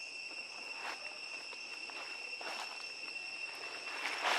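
Steady, high-pitched insect drone with two even pitches. Over it come a few short crinkling rustles of a small plastic snack wrapper being handled, the loudest near the end.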